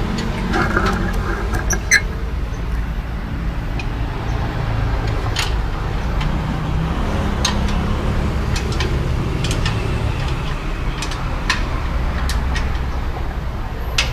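A vehicle engine running steadily at idle, with scattered light metallic clicks.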